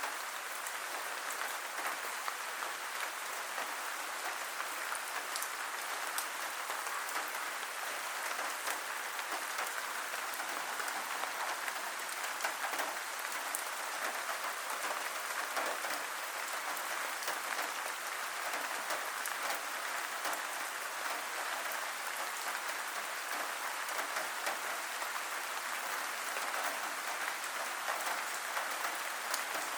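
Steady rainfall, a dense even patter of drops with scattered sharper drip ticks.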